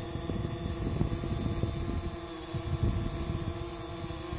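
DJI quadcopter drone hovering at arm's length, its propellers giving a steady buzzing hum, with gusts of wind rumbling on the microphone.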